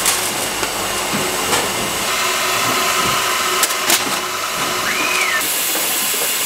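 Steady, hissing street-stall background noise with a few sharp knocks, two of them close together past the middle, and one short rising-and-falling squeak about five seconds in.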